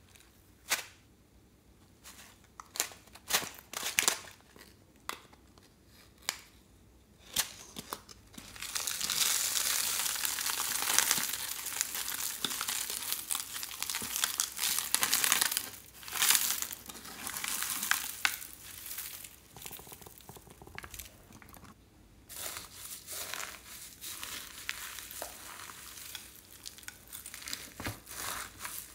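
Scattered sharp taps and clicks as a plastic palette is handled over a glass dish of clear slime. Then a dense crackling as its glitter, sequins and slime are tipped onto the foam beads. Near the end, softer crackling and crunching as fingers press and mix the slime with the foam beads and sequins.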